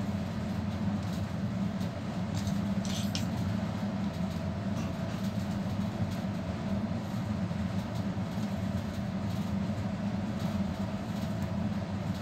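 Steady mechanical drone with a low hum, and a brief rustle or click about three seconds in.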